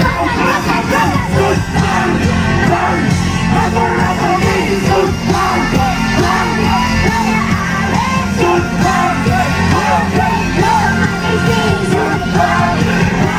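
Loud live concert music over a stage sound system, with a heavy bass, singing, and a crowd shouting and singing along.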